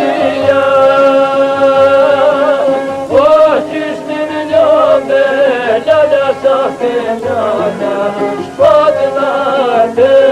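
Albanian folk music from a narrow, old-sounding recording with the top end cut off: an ornamented melody line bends and turns over steady held tones.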